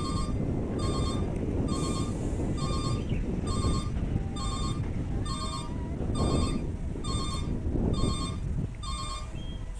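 Dump truck's reverse alarm beeping about once a second, each beep a short bright electronic chirp, over the low rumble of its diesel engine. The beeping stops near the end.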